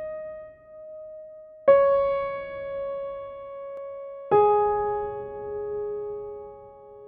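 Calm, sparse electronic ambient music: single notes struck a couple of seconds apart, each left to ring and fade slowly, stepping down in pitch.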